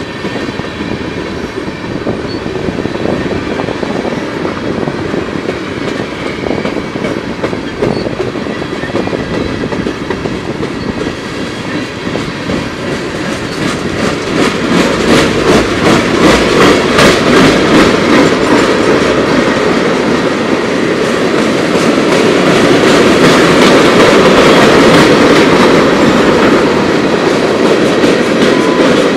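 Freight train tank cars rolling past: a steady rumble of steel wheels on rail with a rapid clickety-clack over the rail joints, getting louder about halfway through.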